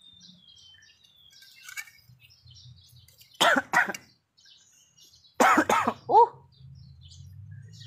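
A man coughing twice, about three and a half and five and a half seconds in, the second cough trailing off in a short voiced sound. It is a dry, itchy cough with no phlegm and a sore throat.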